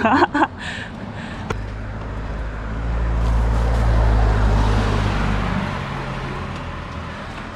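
A car overtaking a bicycle: engine hum and tyre noise build over a couple of seconds, are loudest about halfway through, then fade as the car pulls away ahead.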